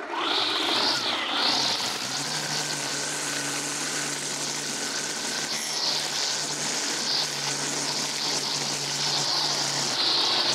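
Electric motor of a battery-powered Stihl lawn tool running steadily at constant speed, a whirring hum under a hiss that wavers up and down.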